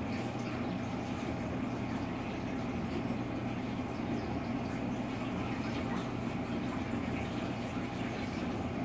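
Reef aquarium's water circulation: a steady low pump hum under a continuous rush and bubble of moving water.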